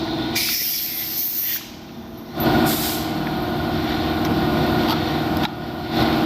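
Workshop noise: short hissing bursts of air, then from about two seconds in a steady mechanical hum with hiss.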